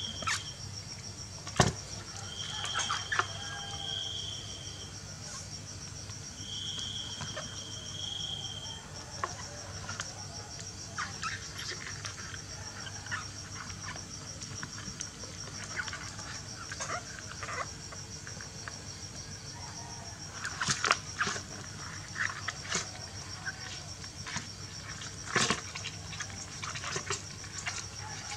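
Scattered knocks, taps and scrapes on a plastic basin as a kitten paws at a live crab, the loudest knock about a second and a half in and small clusters of taps later on. A cricket chirps steadily in the background, and two brief high whistling tones sound a few seconds in.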